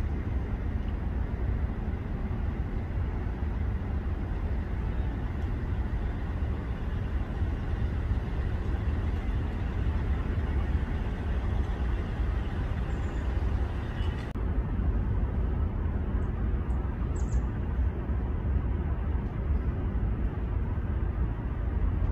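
Steady low outdoor rumble with a hiss over it; about two-thirds through the upper hiss drops away, and a few faint ticks follow.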